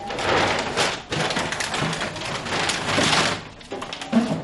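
Rustling and crinkling of things being handled, in two long stretches with a short break about a second in, then a few light knocks near the end.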